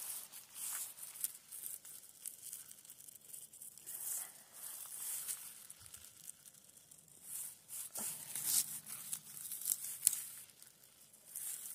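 A hand rustling through moss and dry grass and pulling mushrooms from the forest floor: irregular crackling and tearing, in several bursts.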